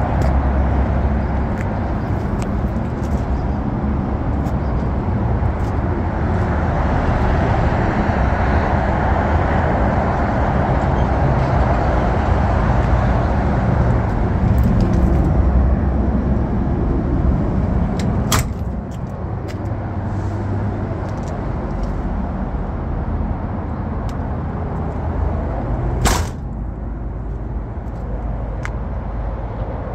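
An engine running steadily with a low hum, a little quieter in the second half. Two sharp knocks come through it, one a little past the middle and a louder one near the end.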